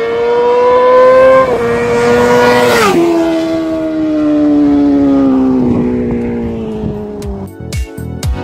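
Honda CBR inline-four superbike with an aftermarket exhaust accelerating hard past the listener. The engine note climbs and dips once at an upshift about a second and a half in, drops sharply in pitch as the bike passes about three seconds in, then falls away and fades.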